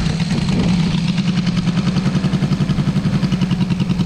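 Engine of an RC scale warbird model idling steadily on the ground before take-off, with an even, lumpy pulsing beat.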